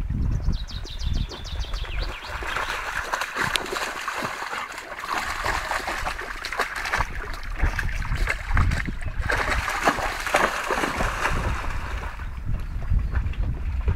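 A Labrador–Belgian shepherd mix dog splashing as it runs and wades through a shallow stream, the splashing strongest from about two seconds in until near the end.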